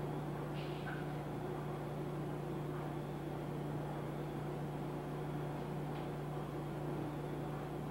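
Steady low hum and whir of laundromat machines running, with a few faint ticks.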